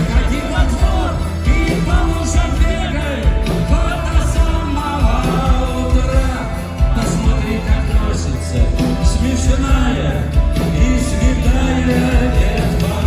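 Rock band playing live: an instrumental passage between verses, full band with a regular drum beat and sustained melodic lines over a heavy low end.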